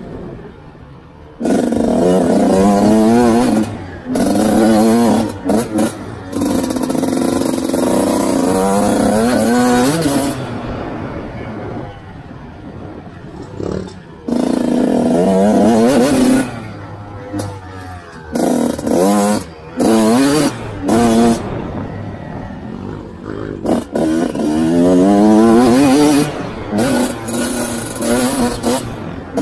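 Dirt bike engine heard from on board, revving hard in repeated bursts with the pitch climbing through each one, then dropping off between them as the throttle is closed for corners.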